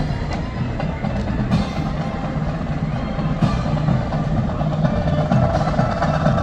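Parade marching band playing, drums and percussion prominent over sustained low horn-like notes.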